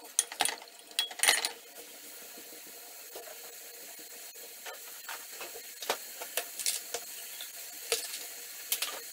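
Sliced onion rings sizzling in fat in an open pressure cooker pot, browning with a dash of soy sauce. A spoon scrapes and knocks against the pot a few times in the first second or so; then a steady sizzle with scattered small crackles.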